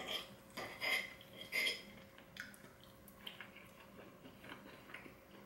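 Steel knife and fork scraping and clinking against a ceramic plate while cutting a tender braised beef short rib: three short scrapes in the first two seconds, then only faint small clicks.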